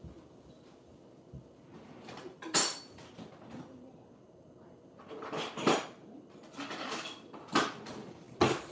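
Metal cutlery clinking and clattering as a steak knife is picked out: one loud clink about two and a half seconds in, then a run of further clatters over the last few seconds.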